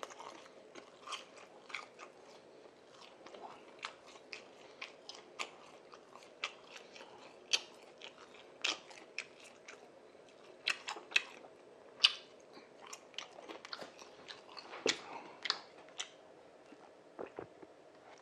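Close-up chewing: a man eating a tteokbokki meal near the microphone, with sharp crunches and mouth clicks at irregular intervals.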